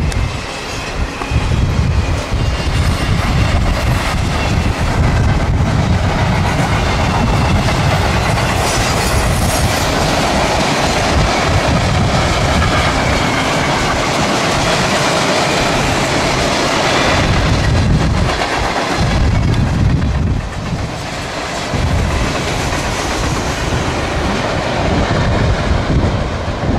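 CSX freight train rolling past, a steady rumble of cars on the rails with the clickety-clack of wheels over rail joints. Strong wind buffets the microphone.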